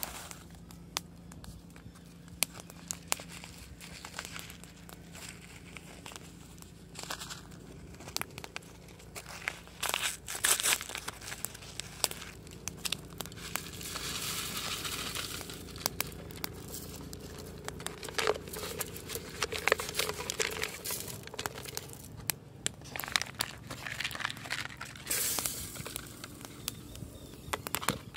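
A plastic spice packet crinkling as it is handled, with scattered sharp clicks and several short rustling stretches.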